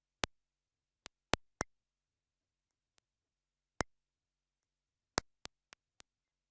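Scattered sharp clicks on an otherwise silent TV audio feed, about ten of them at uneven spacing, several in quick runs of three or four. They are heard in place of the alert tones and voice: KIRO-TV's relay of the EAS monthly test failed and passed only clicking noises.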